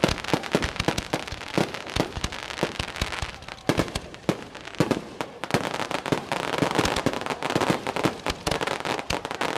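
Fireworks going off in quick succession: many sharp bangs and pops, with a stretch of dense crackling about six to nine seconds in.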